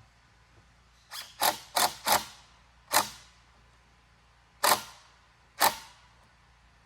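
Seven sharp knocks: four in quick succession starting about a second in, then three more spaced out over the next few seconds, each ringing briefly.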